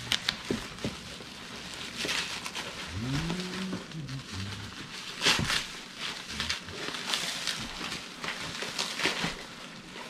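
Plastic bubble wrap crinkling and rustling in irregular bursts as it is pulled open and pushed aside. A brief low tone rises and falls about three seconds in.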